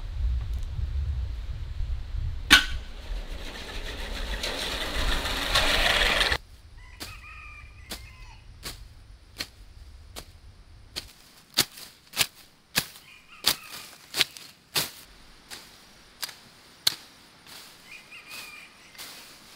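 A rushing noise with a low rumble swells for about six seconds, with one sharp click about two and a half seconds in, then cuts off. Then a hoe chops into grass and soil in a steady series of sharp strikes, about one or two a second, with birds chirping now and then.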